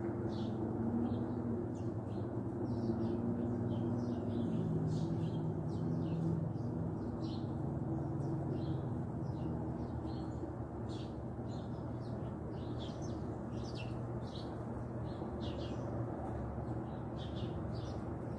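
Small birds chirping, with short high calls coming several to the second. Under them is a steady low background rumble.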